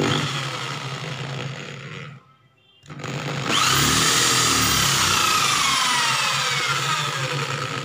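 Electric drill running with a resharpened twist bit pressed against thin galvanized steel tube: a short run of about two seconds that stops, then, about three seconds in, a louder run whose whine slowly falls in pitch. The bit does not bite into the steel at all: it spins on the surface without cutting.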